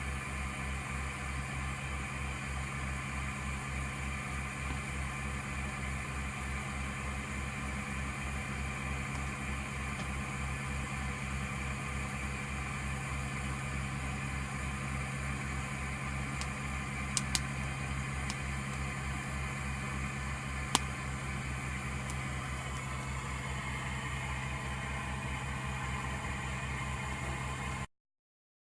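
A machine running steadily with a fast, even low throb and a hum above it, with two or three sharp clicks about two-thirds of the way through; it cuts off suddenly shortly before the end.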